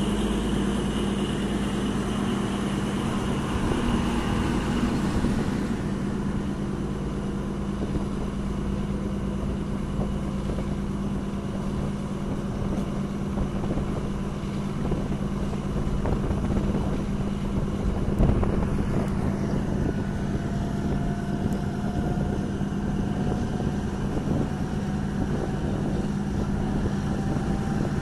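Passenger train running, heard from a carriage window: the locomotive's steady drone over the rumble of wheels on the track, with a brief knock about two thirds of the way through and a faint rising whine near the end.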